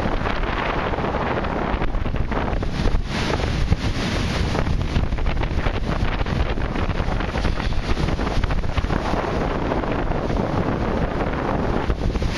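Heavy storm surf crashing and churning around pier pilings, with strong wind buffeting the microphone into a steady rumbling roar.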